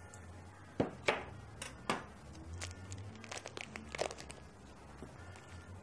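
Plastic vacuum-pack wrapping crinkling in a few sharp crackles as a sausage is pulled out of the opened pack.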